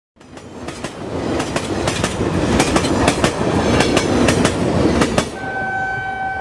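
End-card sound effect: a rumbling clatter with many sharp, irregular clacks, which stops about five seconds in and gives way to a steady high tone.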